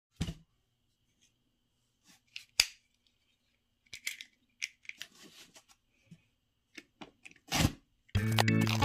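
Utility knife slicing the packing tape on a cardboard box: scattered sharp clicks and short scraping cuts, with one longer slicing stroke near the end. Music starts just before the end.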